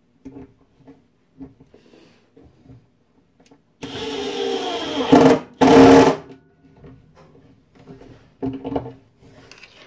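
Power drill driving a screw for a closet-pole bracket into the wall. Its motor runs for about a second and a half, the pitch sinking as it goes, then a short second burst. Light handling knocks come before it.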